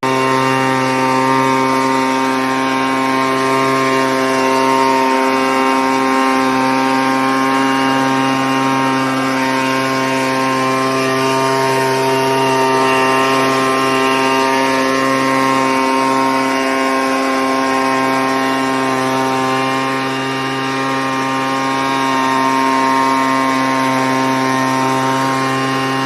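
Two-stroke chainsaw running at a steady high speed, holding one constant pitch, with a slight dip in loudness about two-thirds of the way through.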